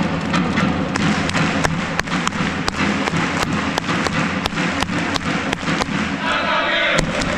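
Football supporters' crowd clapping in unison at about three claps a second during player calls, with the crowd chanting a call together near the end.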